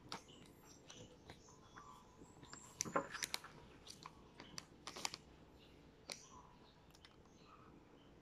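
Crinkling and crackling of a plastic snack packet as small fingers pick at it, in scattered sharp clicks with a denser flurry about three seconds in and another around five seconds.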